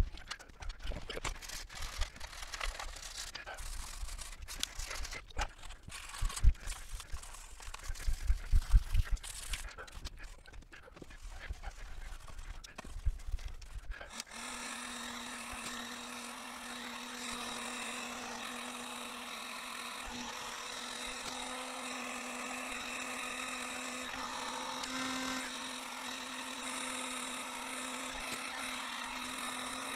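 Irregular knocks and handling noises, then about halfway through a steady hum with a constant pitch starts abruptly and holds.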